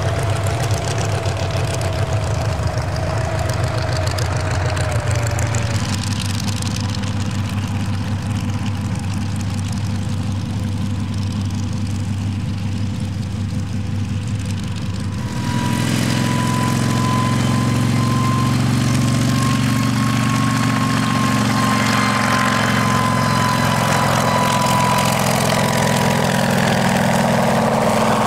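Kamov Ka-26 helicopter running, its two nine-cylinder radial piston engines and coaxial rotors giving a steady drone. A whine falls slowly in pitch over the first few seconds; about halfway through the sound steps up abruptly to louder, with a higher steady whine over the drone.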